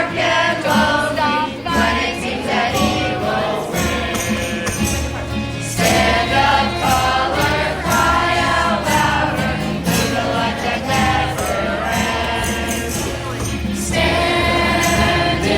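A school choir of many children's voices singing a song together, with several vocal parts layered at once in harmony.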